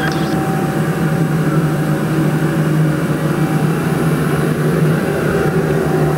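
Steady low mechanical hum with a faint, steady higher tone above it.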